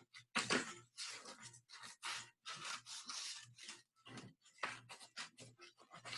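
Scissors cutting a paper hand shape out of a sheet of paper: a quick, uneven run of snips, about three a second.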